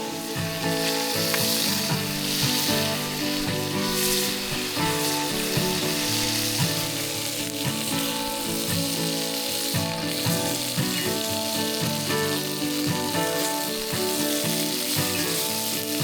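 Food sizzling and frying in a hot pan, a steady hiss with occasional stirring, under background music with held, changing notes.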